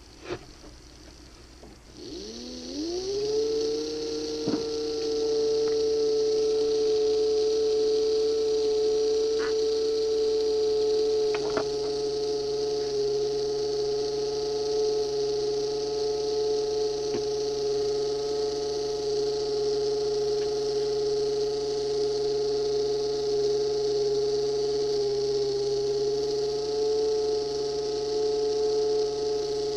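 Small electric motor of an OO-gauge model locomotive's drive unit, run on test track: after a click, it starts about two seconds in, spins up with a rising whine, then runs steadily with a hum-like whine and a hiss. The motor has just been lubricated and is being run in, and it is still not running healthily.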